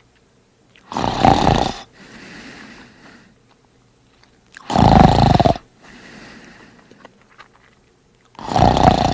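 A man snoring loudly: three loud snores about four seconds apart, each followed by a quieter breath out.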